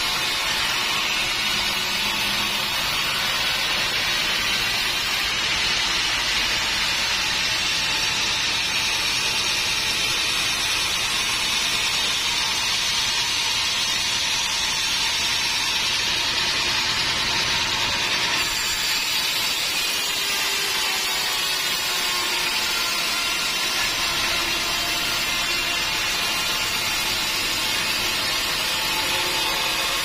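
Band sawmill blade cutting lengthwise through a teak log, a steady sawing noise with the machine running underneath, its tone shifting slightly about two-thirds of the way through.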